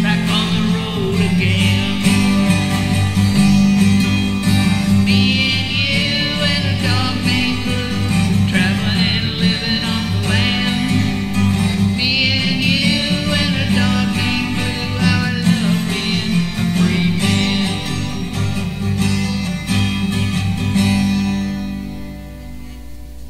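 Music: a 12-string acoustic guitar strummed while a voice sings the song's last lines, fading out in the last couple of seconds.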